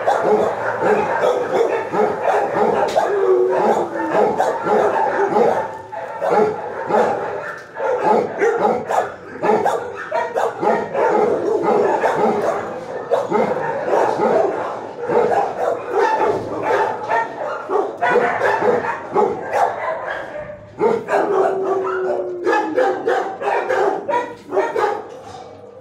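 Many shelter dogs in their kennels barking at once in a continuous, overlapping din, with a falling whine twice.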